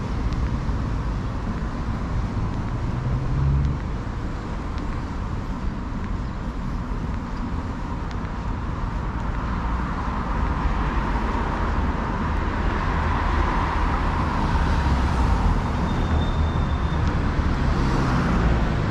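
Road traffic on a city street: cars passing steadily with engine rumble and tyre noise, growing louder from about ten seconds in as vehicles pass close by.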